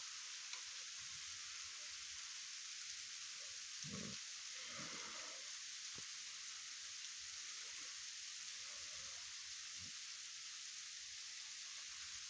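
Frozen rain (sleet) falling steadily, a fine even hiss, with a couple of faint low thuds about four and five seconds in.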